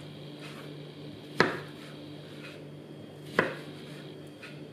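Kitchen knife dicing peeled fresh cucumber on a wooden cutting board: two sharp knocks of the blade on the board about two seconds apart, with fainter cuts between.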